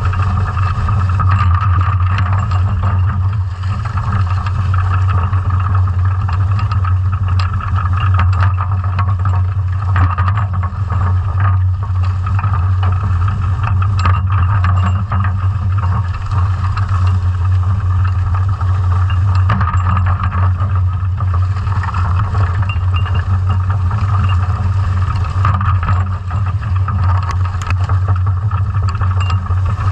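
Underwater sound of a sea scallop dredge under tow, picked up by a camera mounted on the dredge: a steady low drone with many scattered clicks and rattles from the chain-ring bag and gear.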